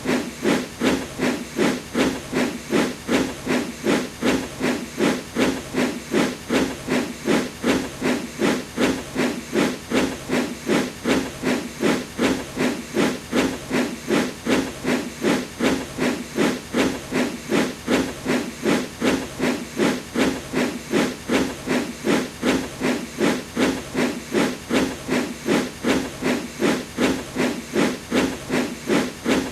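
Steam locomotive puffing at a steady, even pace, about two chuffs a second, each a hiss of exhaust steam.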